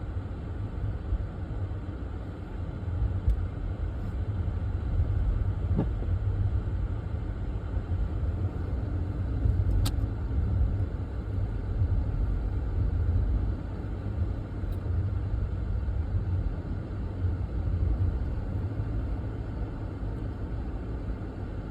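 A car driving along, heard from inside: a steady low rumble of engine and road noise, with one brief sharp click about ten seconds in.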